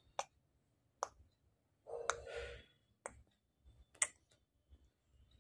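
Five sharp clicks about a second apart, with a short, softer noise about two seconds in.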